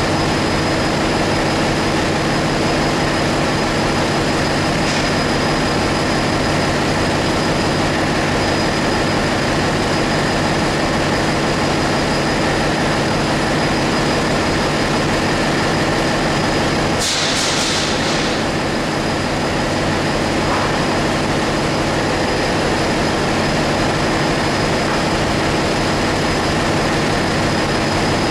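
Loud, steady drone of a ship's engine-room machinery, a constant noise with several steady hum tones in it. A short hiss cuts in about seventeen seconds in and dies away within about a second and a half.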